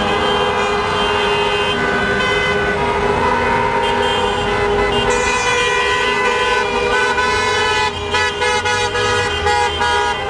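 Many car horns honking at once, overlapping and almost unbroken, over passing traffic, with a few short breaks near the end: a celebratory motorcade of football fans.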